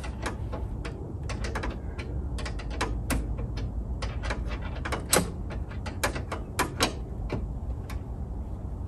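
Irregular sharp clicks and clacks of tools and parts being worked under a car's hood while removing the old battery, over a steady low rumble.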